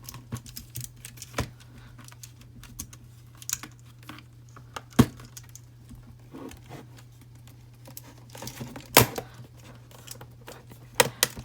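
Small clicks, taps and scraping as a keyboard's internals are pushed and pried back into the keyboard case, with two sharper snaps about five and nine seconds in.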